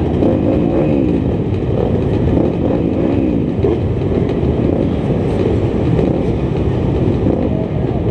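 Many off-road motorcycle engines idling together on a start line, with riders blipping their throttles so the engine pitch keeps rising and falling.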